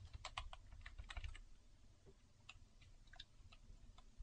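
Faint computer keyboard keystrokes: a quick run of typing in the first second and a half, then a few scattered key presses.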